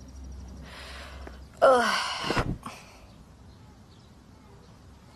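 A woman sighs aloud, a short breathy voiced sigh falling in pitch about one and a half seconds in, after a faint intake of breath.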